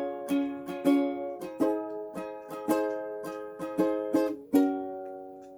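Strummed chords on an acoustic stringed instrument, about two strums a second, closing the song with a final chord about four and a half seconds in that is left to ring out and fade.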